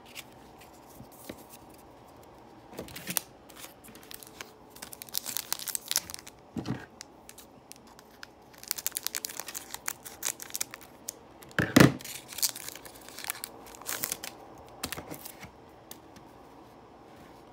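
Foil wrapper of a Panini Score football card pack crinkling and tearing as it is cut open with scissors, in irregular bursts of crackle with the loudest rip just before twelve seconds in.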